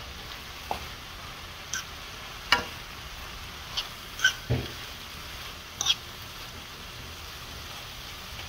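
Sliced bell peppers, okra and carrots sizzling in a frying pan as they are stirred. Scattered clicks and scrapes against the pan come through the sizzle, with one duller knock about halfway through.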